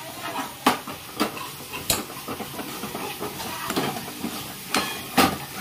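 A spoon stirring palak paneer gravy in a cooking pan, knocking sharply against the pan about five times, over a soft sizzle.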